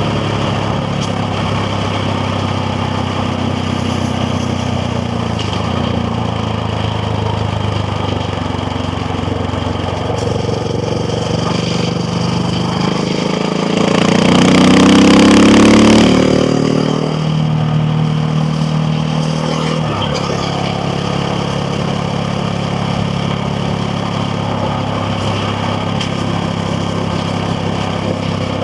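KTM Duke 690R's single-cylinder engine running under way, with pitch rising and getting louder about halfway through as it accelerates, then falling back to a steady run.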